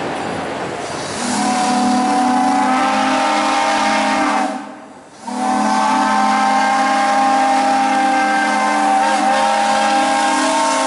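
Steam locomotive whistle blowing a chord of several tones: a long blast starting about a second in, a short break near the middle, then a second long blast.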